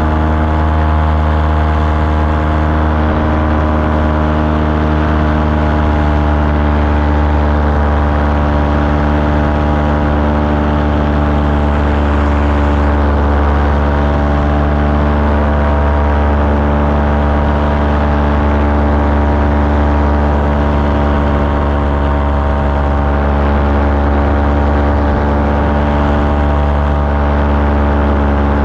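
Small aircraft engine and propeller running steadily in flight, a constant drone with no change in pitch or level.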